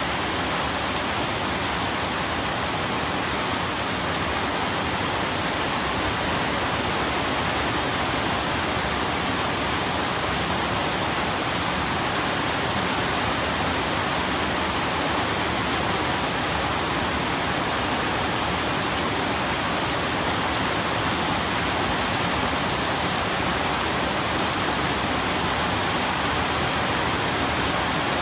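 Steady heavy rain: a dense, even hiss with no single drops standing out.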